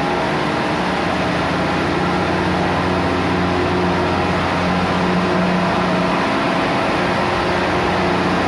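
Steady drone of running diesel machinery in a tugboat engine room: a constant low engine hum under a loud, even mechanical roar.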